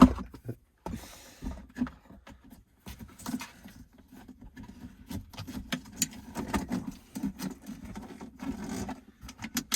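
Hands handling plastic console trim and wiring: scattered light clicks, scrapes and rustling.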